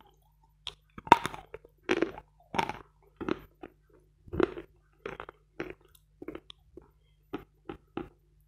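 Dry Vatutin chalk crunching as a bite is chewed with the mouth closed, close to the microphone. The crunches are sharp and irregular, loudest in the first few seconds, then fainter and sparser as chewing goes on.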